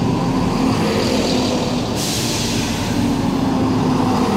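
Diesel engines of a Class 170 Turbostar multiple unit idling steadily while the train stands at the platform, with a hiss of air starting suddenly about two seconds in.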